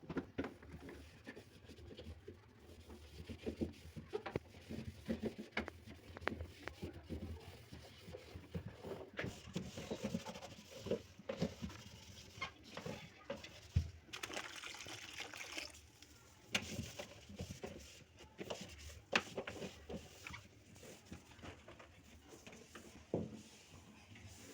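Fridge being cleaned by hand with a wet cloth: irregular small knocks and rubbing against the fridge's inner surfaces, with water trickling around the middle.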